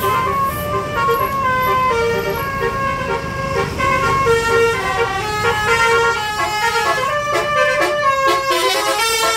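Tour bus's multi-tone 'telolet' horn playing a melody of stepped notes, changing pitch every few tenths of a second and quicker near the end, over a low engine and traffic rumble.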